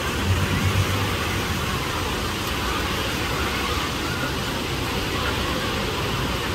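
Steady wash of noise from the wave pool's waterfalls and the crowd of bathers in the water. Wind buffets the microphone with a few low bumps in the first second.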